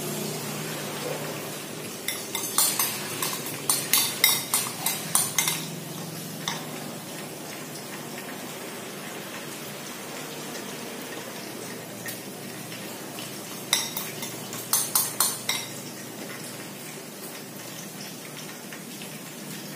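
Tilapia frying in hot oil in a wok, a steady sizzle. Over it a metal spoon clinks against a bowl and the wok rim in two runs of quick taps, about two seconds in and again near fourteen seconds, as leftover batter is spooned over the fish.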